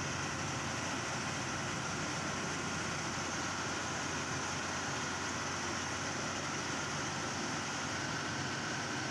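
Diesel engines of heavy road-paving machinery running steadily, a constant engine hum with no sudden knocks or revving.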